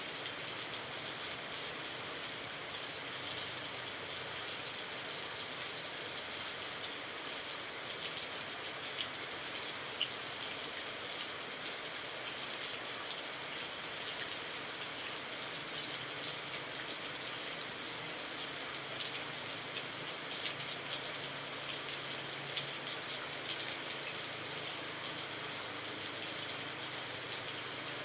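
Steady rain falling: an even hiss, with scattered louder drop ticks.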